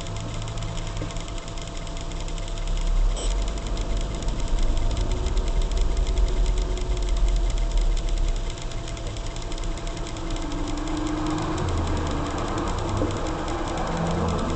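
Car engine and road rumble heard from inside the cabin as the car rolls slowly in traffic: a steady low hum that grows louder about three seconds in.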